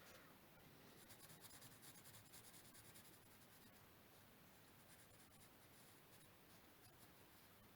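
Faint pencil scratching on origami paper in short, irregular strokes, as an area is lightly shaded in.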